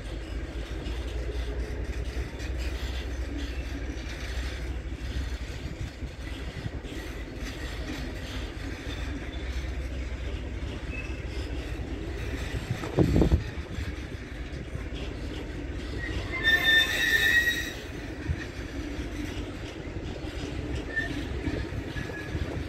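Freight train wagons rolling on the rails with a steady low rumble. A short heavy thud comes just past halfway, and a brief high wheel squeal about three-quarters through.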